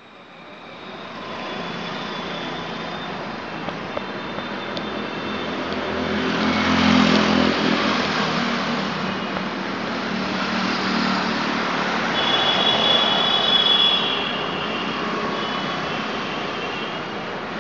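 Street traffic with motor vehicles passing close by. The engine noise swells to its loudest about six to eight seconds in, and again about twelve to fourteen seconds in, when a thin high tone sounds over it.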